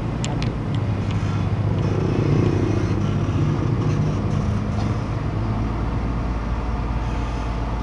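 Hydraulic excavator's diesel engine running steadily, with a few sharp clicks in the first second and a slight rise in level about two seconds in.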